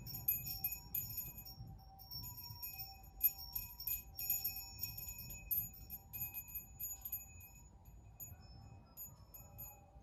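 Background music of high tinkling bell and chime tones in quick runs that thin out toward the end, over a faint low rumble.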